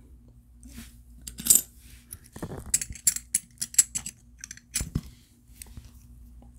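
Silver coins and rounds clinking and clicking against one another as they are handled, a string of short, sharp metallic clicks between about one and six seconds in.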